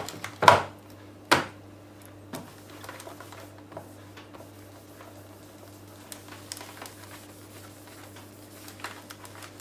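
Two sharp knocks about a second apart as the Samsung NP300V5A laptop's lid is shut and the laptop handled, then the faint rub of a cloth wiping over the closed lid, over a low steady hum.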